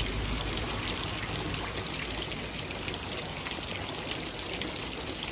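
Steady rain falling, an even hiss of water with no break.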